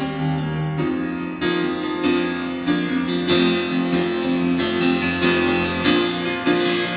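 Piano-led music, chords struck in a steady pulse about every two-thirds of a second.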